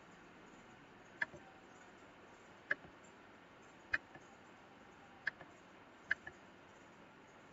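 Five sharp clicks at uneven intervals of about a second or so, several followed closely by a fainter second click, like a computer mouse button being pressed and released.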